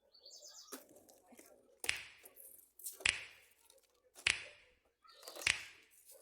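Food containers and packs being set down inside a refrigerator: about five sharp knocks, a little over a second apart, with light rustling between them.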